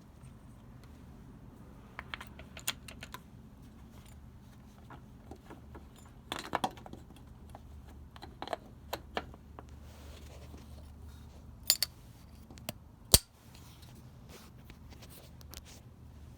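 Scattered small metallic clicks and clinks of parts and tools being handled while the Bosch distributor is put back together, with a few sharper snaps about 12 and 13 seconds in.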